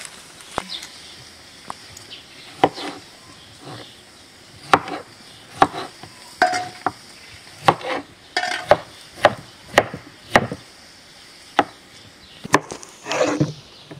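Kitchen knife cutting raw potatoes on a wooden chopping board: the blade knocks on the board at an uneven pace of about one a second, with a short scrape near the end.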